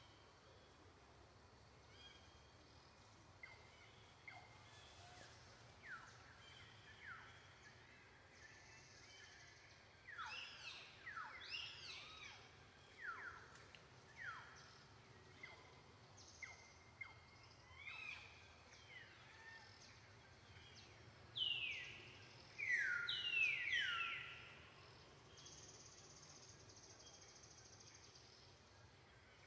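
A series of short, high animal calls, each falling steeply in pitch, scattered and growing louder, with the loudest cluster of three or four about three-quarters of the way through, over faint steady background noise.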